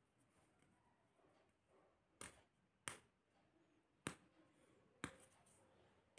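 Four short, sharp clicks spread over a few seconds over faint room hiss: small handling noises from fingers working at a roll of electrical insulation tape beside a metal rangoli tool.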